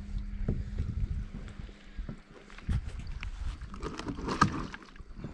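Irregular knocks, bumps and clicks of a freshly landed fish and fishing gear being handled in a plastic kayak, with the loudest clatter about four and a half seconds in. A steady low hum stops about half a second in.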